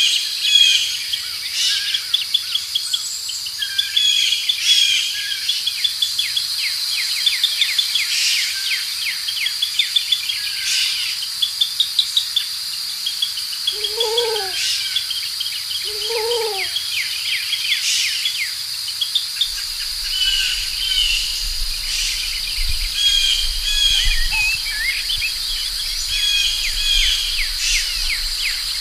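Forest ambience: many small birds chirping and singing in quick, overlapping calls over a steady high insect drone. A lower, deeper call sounds twice about halfway through, a couple of seconds apart.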